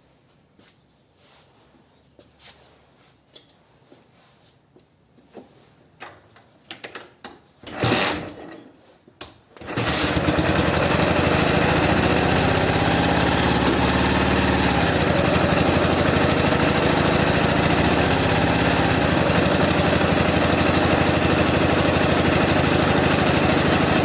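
Scattered light clicks and knocks with a louder knock about eight seconds in, then at about ten seconds a Ural flat-twin motorcycle engine starts and runs steadily on a single cylinder, the other cylinder switched off.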